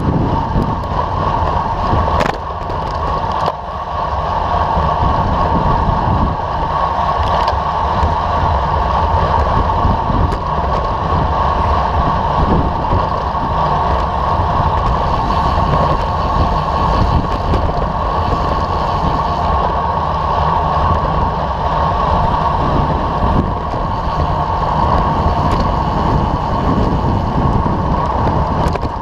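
Steady wind rush and rumble on the microphone of a camera mounted on a road bicycle riding at race pace.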